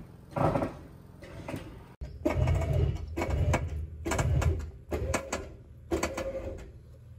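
Crash-damaged sheet metal of a Mercedes C43 AMG's unibody creaking and popping in several irregular bursts under the strain of a winch cable pulling the crumpled rear straight.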